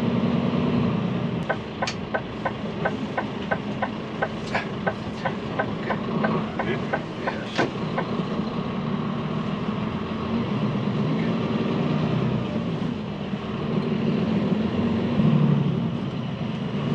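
DAF XD 450 truck's diesel engine running steadily at town speed, heard from inside the cab. A run of quick, evenly spaced ticks, about three a second, starts about a second and a half in and stops around eight seconds in.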